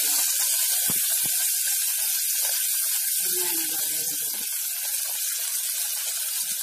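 Chopped onions sizzling in hot oil with dried red chillies in an aluminium pressure cooker, a steady loud hiss. Two light knocks come about a second in.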